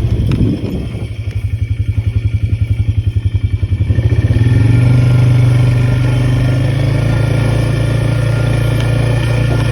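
A vehicle engine running, throbbing unevenly for the first few seconds, then settling into a steady hum from about four seconds in.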